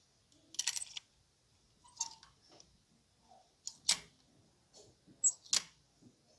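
Clear plastic clothes hangers clicking and sliding on a metal rack rail as garments are pushed aside one by one. There are four short clattering bursts, the loudest about four seconds in.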